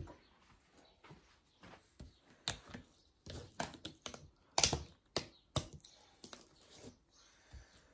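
A run of irregular clicks and knocks as breakfast things are handled on the table, a milk carton set down beside a glass bowl of muesli. The loudest knock comes a little past the halfway point.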